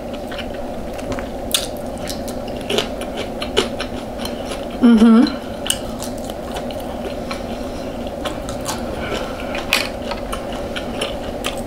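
Close-miked eating: chewing and biting with many sharp clicks of a fork against a plate, over a steady low hum. A brief hummed 'mm' comes about five seconds in.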